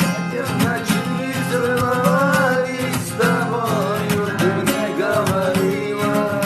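Song with acoustic guitar accompaniment under a wavering, pitch-bending sung melody.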